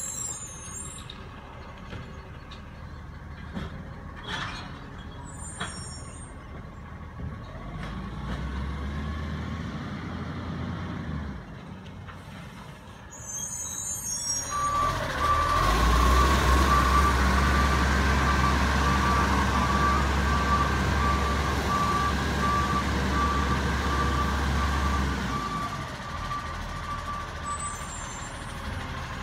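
Iveco Acco garbage truck's diesel engine running quietly, then much louder for about ten seconds from halfway in, with an electronic beeping alarm sounding over the loud stretch.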